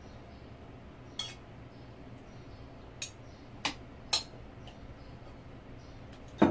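Metal kitchen tongs clinking against the bowl and plate as raw pork spare ribs are lifted and laid down: a handful of separate sharp clinks, the loudest near the end.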